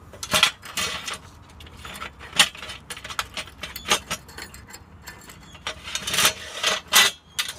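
Metal clinks and scrapes of bolts and clamps being shifted along an aluminium solar-panel mounting rail: several separate sharp clicks, a second or two apart.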